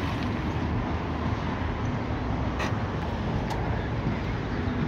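Steady low rumble of road traffic, with a couple of faint clicks partway through.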